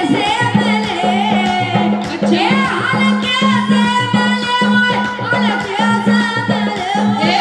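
Bundeli Rai folk song performed live through a PA: a woman sings sliding, ornamented lines into a microphone over harmonium and a steady drum beat pulsing about twice a second.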